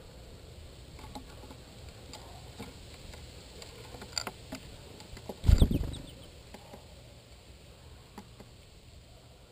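Small birds feeding on a wooden tray of sunflower seeds right at the microphone: light taps and clicks of seeds and feet on the board, with one loud thump about five and a half seconds in.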